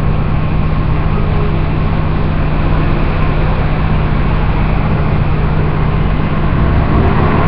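Microwave oven running: a steady, loud hum with a constant low drone.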